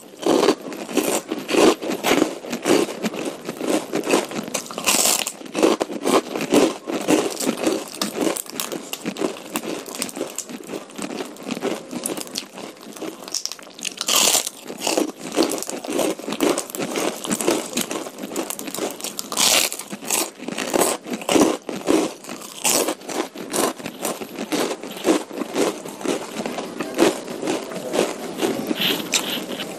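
Close-miked eating sounds: chewing and biting through a meal of soupy curry noodles, beef meatballs and bird's eye chillies, with dense wet, irregular mouth sounds. A few sharper, louder bites stand out, around five, fourteen and nineteen seconds in.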